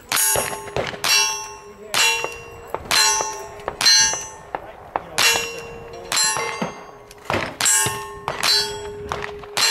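A steady string of about ten gunshots, roughly one a second, each answered by the ringing clang of a hit steel target.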